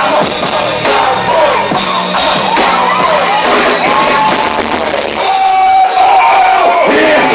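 Live hip-hop performance over a club PA, recorded loud: a heavy beat with shouted rap vocals on top and the crowd yelling along. Near the end, one long held vocal note stands out.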